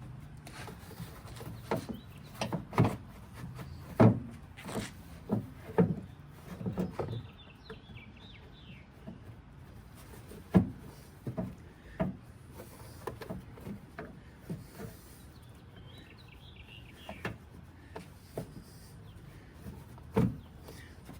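Irregular knocks and clicks of parts being handled and fitted under a pickup's hood, most frequent in the first half with one sharp knock near the end. A bird chirps in two short bursts in the background.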